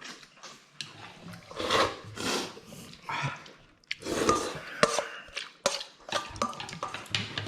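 Someone eating noodle soup fast: short noisy slurps of noodles and broth, with many small sharp clicks of utensils against the bowl.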